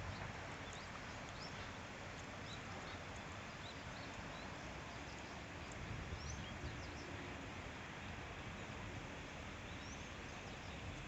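Riverside ambience: a steady, even rush of outdoor noise with small birds chirping faintly and often, in short high calls.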